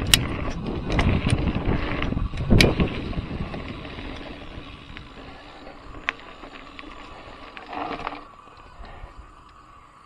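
Trek Fuel EX 7 full-suspension mountain bike riding over a dirt trail: tyre rumble and chain and frame rattle with sharp knocks from bumps, loudest in the first three seconds. The noise dies away as the bike slows, and it is quiet by the end.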